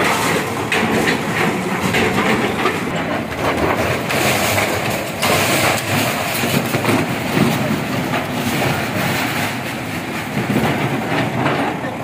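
A backhoe loader's diesel engine runs while its bucket breaks down masonry walls, with rubble clattering and crashing down in many short impacts.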